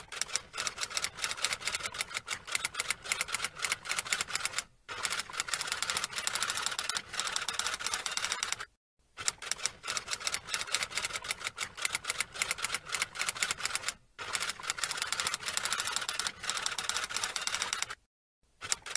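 Typewriter typing sound effect: rapid key clicks in runs of about four seconds, broken by short pauses, with one short run near the end.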